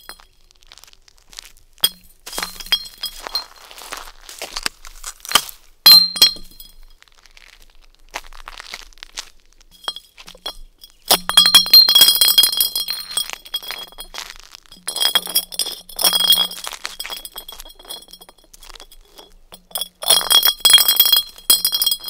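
Glass bottle kicked and rolled along concrete and through dry sticks. It clinks and rings in about six bursts, the longest about a second and two-thirds in, at around 11–14 seconds and near the end, with quieter gaps between.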